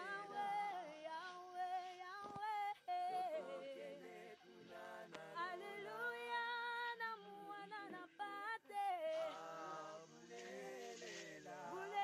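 A woman's voice singing without instruments, in long held notes that waver, with short breaks between phrases.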